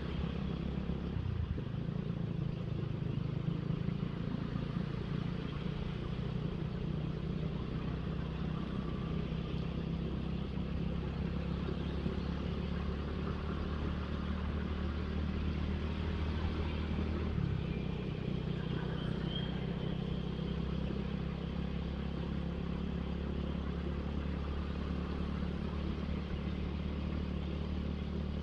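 Suzuki Satria FU motorcycle engine running steadily while riding on a wet town road, with road and wind noise. The engine note steps down about a second in and again around 17 seconds in, as the revs change.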